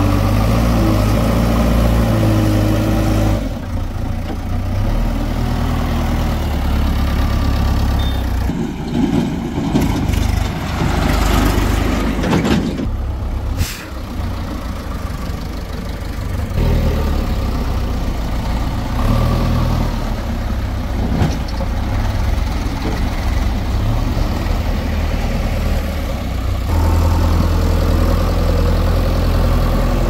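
Heavy diesel engines of a JCB backhoe loader and tractors running and idling as mud is loaded into a trolley. The engine note shifts several times, with a rougher, noisier stretch near the middle.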